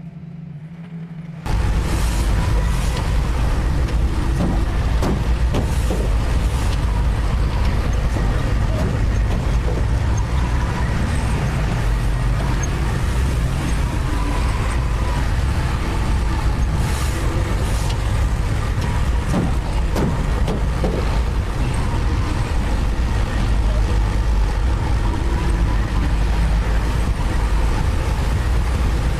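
Heavy diesel construction machinery running steadily and loudly close by, cutting in suddenly about a second and a half in.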